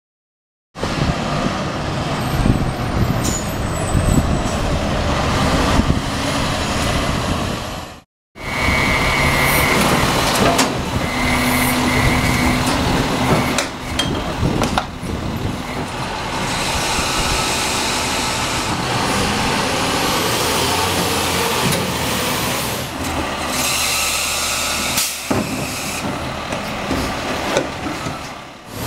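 Heil Multitask SL split-body garbage truck working its semi-automated cart tippers: the engine runs under load with a hydraulic whine as carts are lifted and dumped into the hopper, with a few knocks along the way. Wind buffets the microphone. The sound drops out briefly about eight seconds in.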